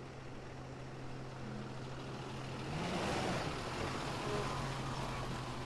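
A fire rescue truck's engine running as it drives past close by, with a steady engine hum that rises a little in pitch about three seconds in while engine and tyre noise swell to their loudest, then ease off.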